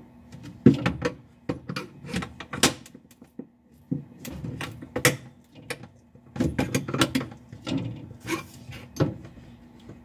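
Irregular plastic clicks, knocks and rattles as the Amana refrigerator's ceiling light and control-panel housing is pushed and pried by hand to release its clips. The loudest knock comes near the start.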